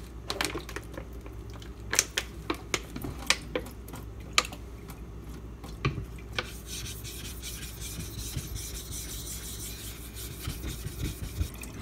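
A 4000-grit Nubatama water stone being flattened by rubbing an abrasive plate across its face: a steady gritty scraping in the second half. Before it come a series of sharp clicks and knocks as the stone and plate are handled.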